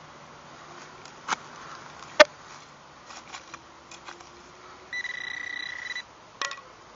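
A few sharp knocks and clicks, then a Garrett Pro-Pointer pinpointer sounds one steady high beep of about a second, signalling metal still in the hole, followed by one more click.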